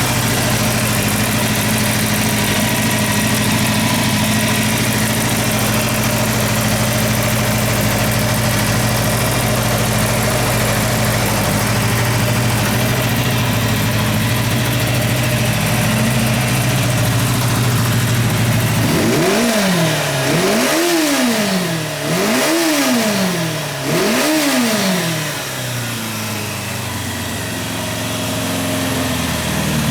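Kawasaki Zephyr 550 (ZR550-B2) air-cooled inline-four idling steadily, then blipped three times in quick succession about twenty seconds in, each rev climbing and dropping quickly, before settling back to idle. The engine revs up cleanly and returns to idle, the sign of a healthy running engine.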